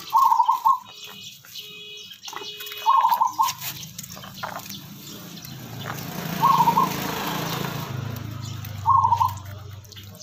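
Water splashing and dripping while a chicken is bathed, heaviest in the middle. A bird's short call cuts through four times, about every two and a half seconds.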